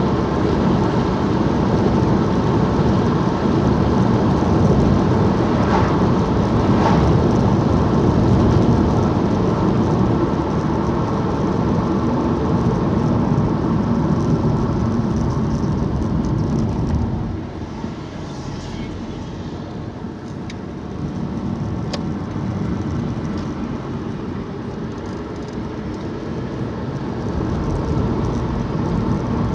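Engine and road noise heard from inside a moving vehicle: a steady rumble that eases off a little over halfway through, as if slowing, and builds again near the end.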